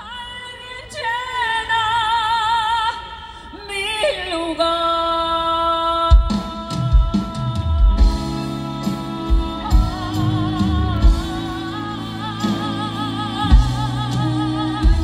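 Female singers performing live with a band, holding long notes with vibrato, with drums coming in about six seconds in.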